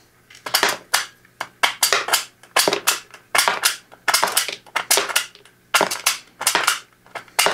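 Sharp clicks of lead .457 slugs clattering in a plastic tray as an extended airgun magazine is pushed down into the pile to load them, mostly in pairs of clicks about once a second.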